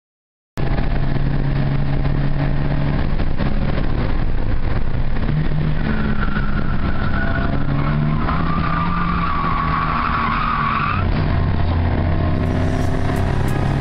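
Ford Escort Mk1's 1300 Crossflow pushrod four-cylinder engine running hard, heard from inside the cabin, its pitch shifting as the revs change. From about halfway the tyres squeal for several seconds through a powerslide, then the engine note drops to a lower tone.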